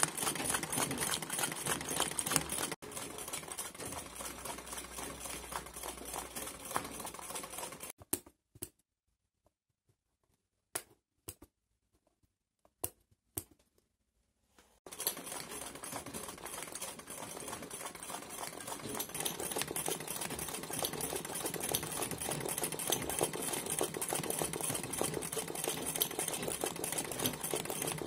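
Black straight-stitch sewing machine running fast for free-motion embroidery, a rapid, even stitching clatter. It stops about eight seconds in, leaving near silence broken by a few single clicks, and starts up again about halfway through.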